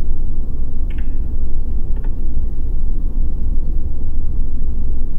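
Steady, loud low rumble with no speech, the same background noise that runs under the phone conversation.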